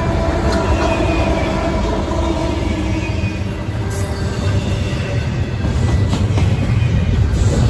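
Canadian Pacific diesel locomotive, working as a mid-train distributed power unit, passing close by with a steady engine rumble whose tone fades over the first few seconds. It is followed by double-stack container cars rolling past with continuous wheel-on-rail noise and scattered clicks.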